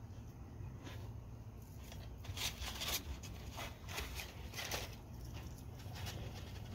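Crumpled paper balls crinkling and rustling as a dog noses them out of the cups of a metal muffin tin to get at hidden treats, in a handful of short crackly bursts, thickest between about two and five seconds in.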